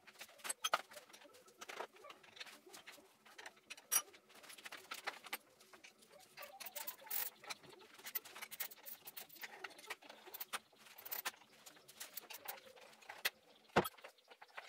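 Hand tools and metal motorcycle parts clicking, clinking and knocking irregularly while the front fender and brake caliper are unbolted from a motorcycle's forks, with brief metallic rattles.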